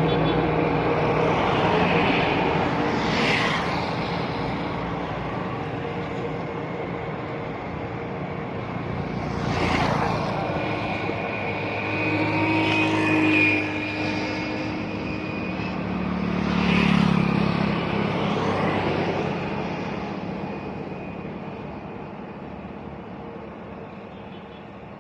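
Road traffic: a steady wash of engine and tyre noise as several vehicles pass one after another, dying down over the last few seconds.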